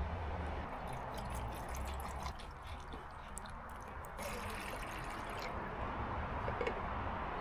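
Water poured from a plastic bottle into a Jetboil camping stove's cup, then, about four seconds in, the stove's gas turned on with a steady hiss of escaping gas.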